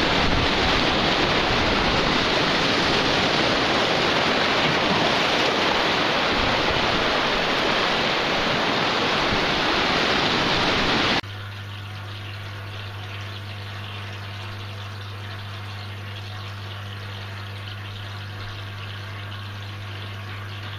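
Steady rush of ocean surf and wind on the microphone; about eleven seconds in it cuts off suddenly to a much quieter steady low hum.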